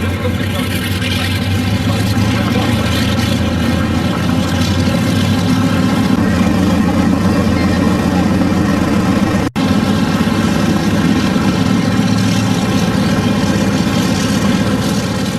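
Piston aircraft engine running steadily with a heavy, low, even drone. The sound drops out for an instant about two-thirds of the way through.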